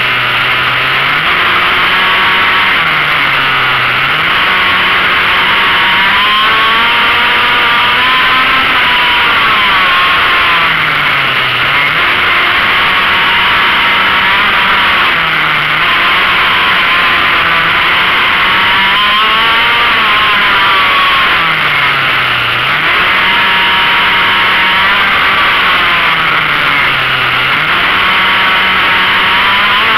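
Go-kart engine heard from on board, running hard, its revs dropping into each corner and climbing again on the straights several times over.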